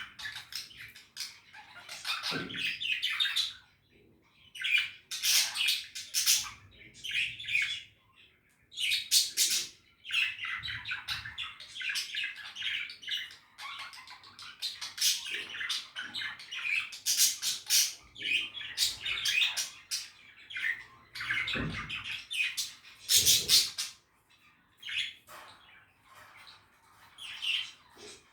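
Budgies (budgerigars) chattering and warbling: rapid high chirps, squawks and trills in bursts of a few seconds, broken by short pauses, with a few soft low thumps among them.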